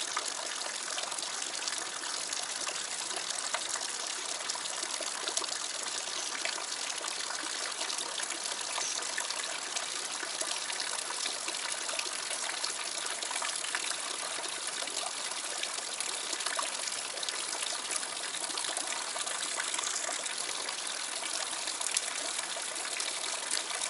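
Water falling and splashing steadily into a rocky pool: a small cascade down a rock wall, with a continuous even rush and trickle.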